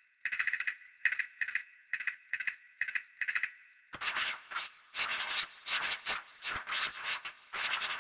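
Sound effects from a projection-mapping show's soundtrack: short, rhythmic scraping or clattering bursts, about two to three a second, thin and narrow at first. About halfway through they turn louder and fuller, coming thicker and faster.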